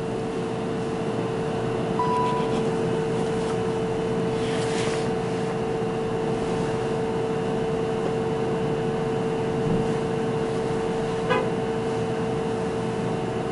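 Steady machine hum with a constant mid-pitched tone, room tone with no speech. There is a short higher beep about two seconds in and a brief faint tick near the end.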